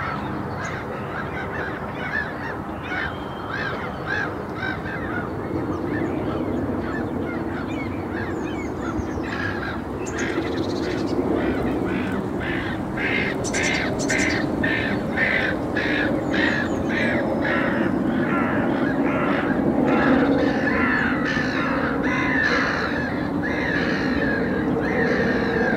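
Many birds calling, short harsh calls repeated over and over, most densely near the middle, over a steady low background hum.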